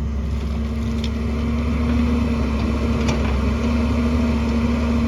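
Excavator's diesel engine running steadily, getting a little louder about two seconds in, with a couple of faint clicks.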